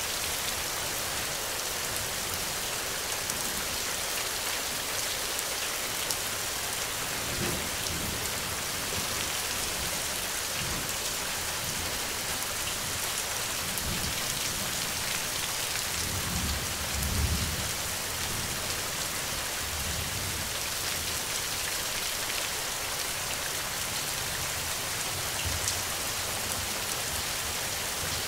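Steady rain falling, an even hiss of drops on a surface. A deeper low rumble swells a little past halfway through, with fainter low rumbles here and there.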